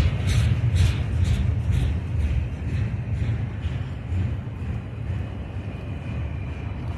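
Freight train cars rolling past, wheels clicking over rail joints about twice a second, the clicks fading out a couple of seconds in. Wind buffets the microphone with a heavy low rumble.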